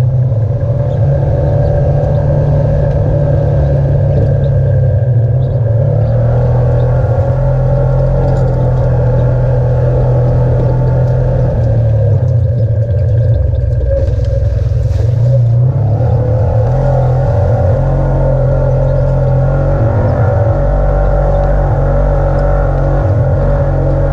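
Off-road vehicle engine running steadily as it drives a dirt trail, the drone shifting a little in pitch with throttle. Heard up close through a camera mounted on the vehicle.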